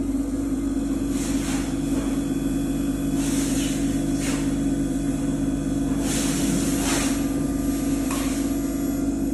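Automatic CNC end mill grinder running: a steady machine hum, with short hissing bursts coming every second or two.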